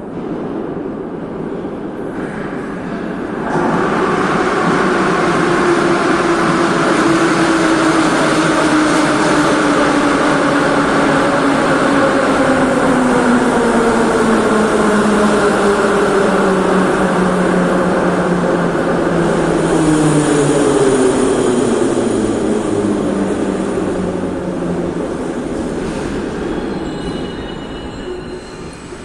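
Metro train pulling into the station: a loud rush of wheels on rails sets in a few seconds in, and the motor whine falls steadily in pitch as the train slows to a stop. The sound dies away near the end.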